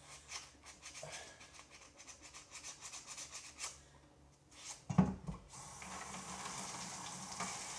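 Quick rubbing strokes of something being wiped or scrubbed clean, then a loud knock about five seconds in, followed by the steady sizzle of fish frying in a pan.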